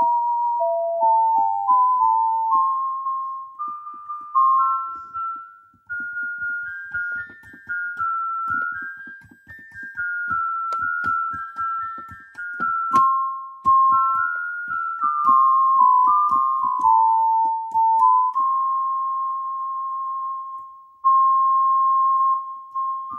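Background music: a single-line keyboard melody in clean, separate notes that climbs over several seconds, then steps back down and settles on a long held note near the end.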